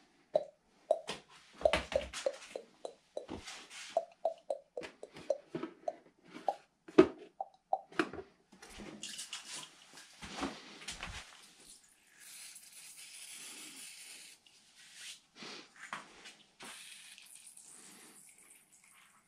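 A run of knocks and clatter of things being handled, the loudest about seven seconds in, then an aerosol spray can hissing steadily for about two seconds, lubricating a bare bicycle inner cable.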